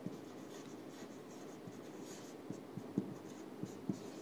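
Marker writing on a whiteboard: faint scratchy strokes with light taps, a few sharper taps in the second half.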